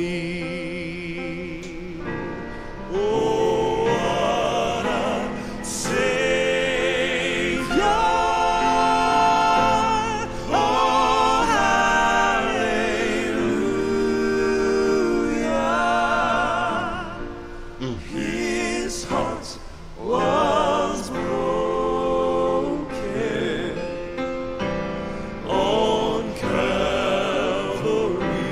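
Male gospel vocal quartet singing in harmony with piano accompaniment, the voices holding long notes with vibrato.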